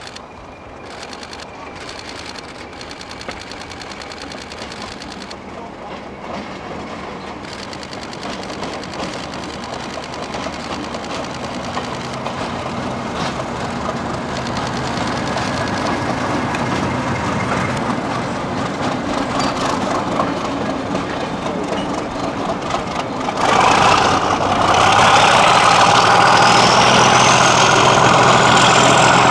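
Class 37 diesel locomotive's English Electric V12 engine, hauling coaches, growing steadily louder as it approaches, then much louder as it draws close about three-quarters of the way through. A high whine climbs in pitch near the end.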